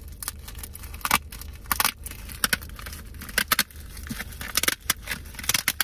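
Yellow padded mailer envelope crinkling and crackling as it is handled and pulled open, in many irregular sharp crackles.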